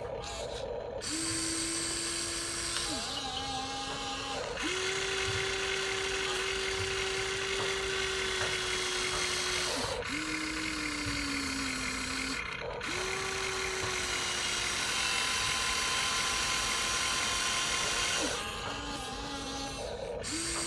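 Small electric motors of a radio-controlled toy excavator or truck whining in stretches of a few seconds. The pitch steps up or down as each movement starts, and there are short breaks between movements.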